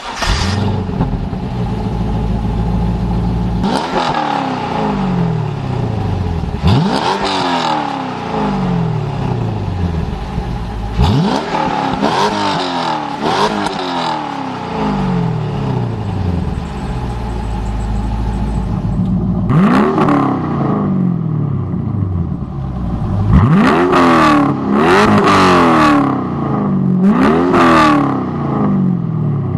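Chevrolet C5 Corvette 5.7-litre V8 idling and being free-revved through its exhaust in short blips, each rev shooting up and sliding back down to idle. There are about five blips in the first half, and after a change in the sound about two-thirds in, about five more in quicker succession.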